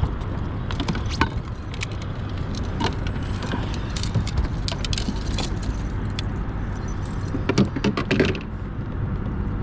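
Light metallic clinking and rattling of fishing tackle being handled, with scattered clicks and a dense cluster of them near the end, over a steady low rumble.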